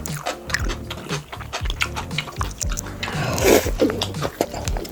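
Close-miked mouth sounds of a person biting and chewing food, with a dense run of small crunchy clicks and a louder noisy burst about three and a half seconds in, over background music with steady low notes.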